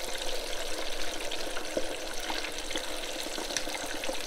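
Hot oil in a countertop deep fryer bubbling and sizzling steadily around chunks of venison backstrap in the fry basket, with many small pops and crackles.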